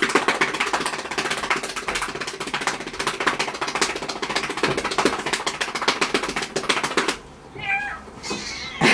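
A hand patting a cat's rump in a fast, even run of soft pats, many a second, which stops about seven seconds in. A short cat cry follows as the excited cat turns on another cat.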